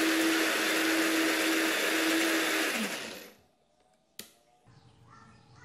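Countertop blender running, puréeing chopped pandan leaves with water, with a steady hum under the motor noise. About three seconds in the motor is switched off and winds down, falling in pitch to a stop, and a second later there is one sharp click.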